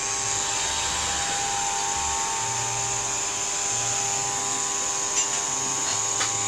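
Mini LS 220 remote-control coaxial helicopter's electric motors and rotors running with a steady high whine as it flies. A couple of light clicks come near the end.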